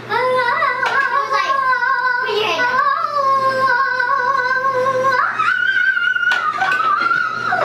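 A young girl singing in long held notes, stepping up to a higher held note about five seconds in.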